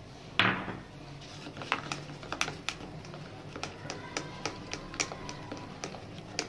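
A metal spoon stirring thick pizza sauce in a bowl, clicking lightly and irregularly against the bowl's side, with one louder scrape about half a second in.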